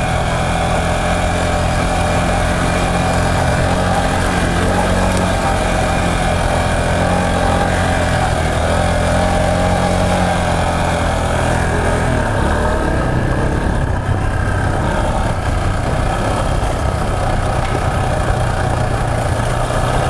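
Yamaha Serow 250's single-cylinder four-stroke engine running steadily as the bike is ridden along a dirt forest track. The engine note changes about twelve seconds in.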